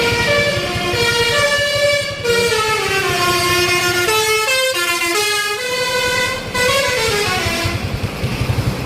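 Indonesian 'telolet' bus horn, a multi-tone musical air horn, playing a tune of held notes that step and slide up and down, over a low engine rumble.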